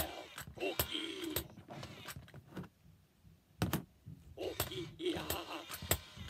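Count 'n Crunch Cookie Monster animatronic plush toy talking in its recorded voice from its small speaker, along with the clicks and whirring of its motor as its head and mouth move. There is a short pause, then a sharp click, then more of its voice.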